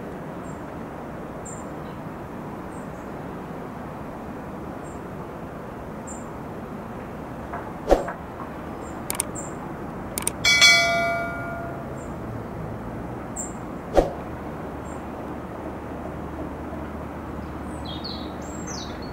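Steady low outdoor rumble with a small bird chirping faintly every second or two. Sharp knocks come about eight and fourteen seconds in, and a metallic clang rings out and fades over about a second near the middle. Quick bird calls come near the end.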